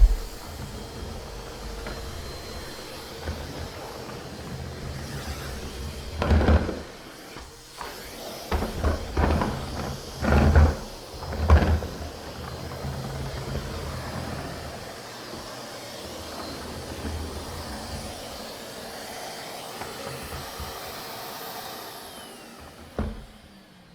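Numatic James canister vacuum running steadily, with a series of thumps and knocks in the middle as it is moved about on the floor. Its motor sound fades away near the end.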